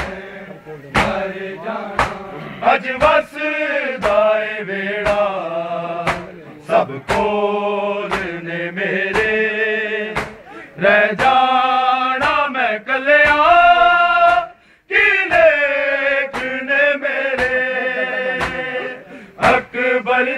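Male voices reciting a noha without instruments, a lamenting chant that runs through, punctuated by sharp slaps of chest-beating (matam) landing about once a second in time with the recitation.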